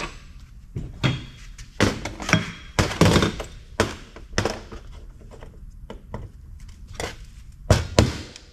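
Hammer striking a screwdriver used as a chisel, prying a BGA chip off an aluminum heatsink: a series of sharp, irregular knocks, the loudest two close together near the end.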